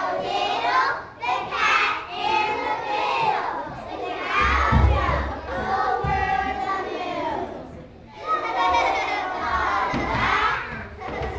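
A group of children's voices shouting together, in several loud phrases with short breaks between them, and a low thump about halfway through.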